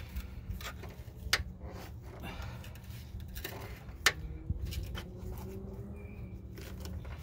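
A long screwdriver prying at the rubber bump stop on a Jeep Grand Cherokee WJ's front suspension, working it out of its frame bracket: scattered scrapes and sharp metal clicks, the loudest about a second and a half in and again about four seconds in.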